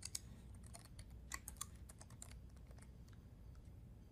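Laptop keyboard keys being typed, faint and quick, as a short command is entered. A run of light key clicks over the first couple of seconds, then just a few soft taps.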